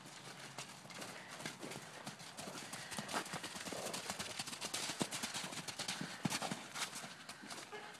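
Hoofbeats of a horse cantering on soft sandy dirt, a rapid irregular series of dull thuds that grows louder in the middle as the horse passes close and then eases off.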